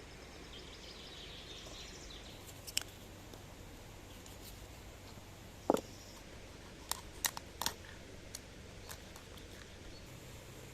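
A few sharp clicks and knocks of hands working with kitchen tools, over a quiet outdoor background with faint bird chirps in the first couple of seconds.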